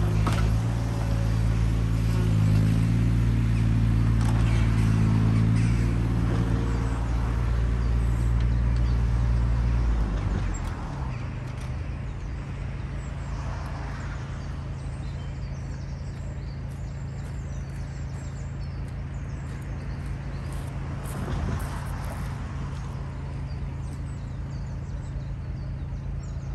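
Mini excavator's diesel engine running at working revs, then dropping to a steady idle about ten seconds in.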